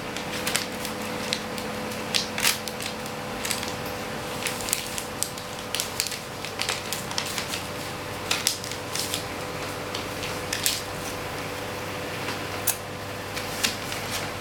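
Sheets of paper being folded and creased by hand: crisp crackles and rustles at irregular intervals.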